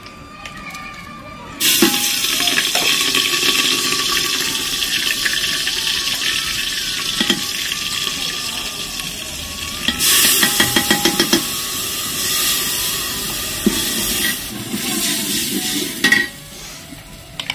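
Ingredients dropped into hot oil in an aluminium pot on a wood-fired clay stove start sizzling suddenly about two seconds in. A metal ladle stirs and scrapes around the pot in several quick bursts, and the sizzle drops away shortly before the end.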